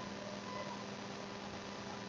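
Steady hiss with a low, constant electrical hum: the background noise of the recording, with no distinct event.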